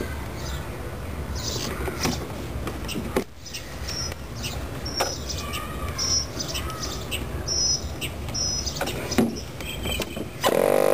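Small birds chirping, short high chirps scattered through the middle, over a low outdoor rumble with a few clicks and knocks. Near the end a handheld electric starter pressed onto the spinner cranks a .46-size model-airplane glow engine with a loud, steady whine.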